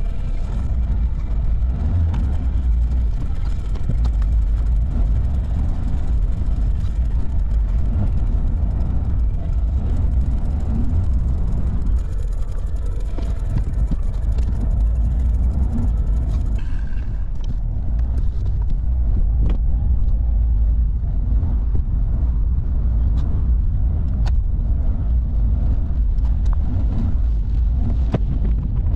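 Car driving, heard inside the cabin: a steady low rumble of engine and road noise, with faint scattered ticks in the second half.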